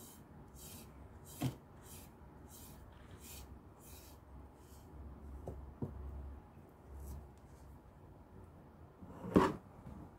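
A back scratcher stroked along a cat's furry back, a soft scratchy rasp repeating about one and a half times a second, trailing off about five seconds in. A single loud knock near the end.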